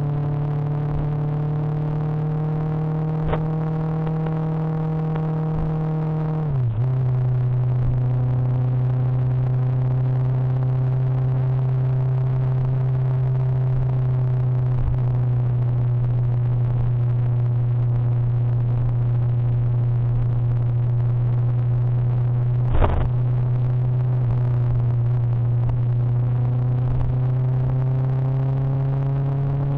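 Motorcycle engine running at steady road speed. Its pitch drops sharply about six seconds in, then holds steady and slowly rises near the end. A single short knock comes about two-thirds of the way through.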